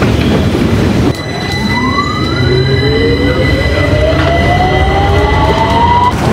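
London Underground Victoria line train pulling out of a station, after about a second of rushing noise. Its electric traction motors whine in several tones that rise steadily in pitch as it picks up speed, over the low rumble of the carriage.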